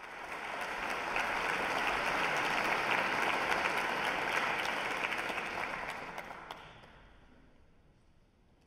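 Audience applauding, steady for about six seconds and then dying away.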